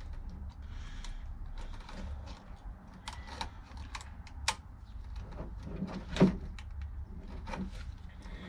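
Scattered light clicks and taps, with one louder knock about six seconds in, over a steady low hum.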